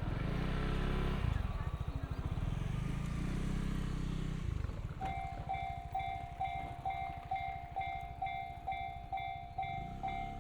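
An electric train rumbling past a railway level crossing, with some rising motor tones, fading after about four and a half seconds. About five seconds in, the electronic crossing warning bell starts ringing steadily, about two dings a second.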